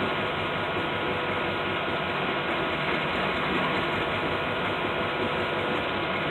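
Freight hopper cars rolling slowly along the track during switching: a steady mechanical noise of wheels on rail, with no distinct bangs.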